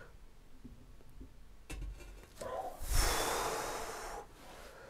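Heavy cast-iron scraping plate set down on a milling machine column's scraped surface and slid across it, a low knock and then a hiss of metal on metal with faint high ringing. A strained breath from the men lifting it is mixed in.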